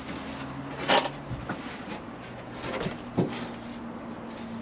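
Large plywood sheet knocking and scraping against the van's bare interior as it is handled into place: a sharp knock about a second in and two lighter ones near the three-second mark, over a faint steady hum.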